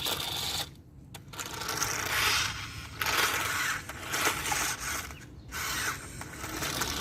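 Small electric motor and plastic gears whirring in uneven bursts with short dips, like a remote-control toy stunt motorcycle running. It cuts off suddenly at the end.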